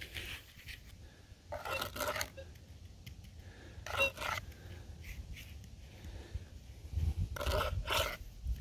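A small metal hand trowel scraping and scooping dry clay soil in a few short strokes: one about a second and a half in, one near four seconds, and two close together near the end.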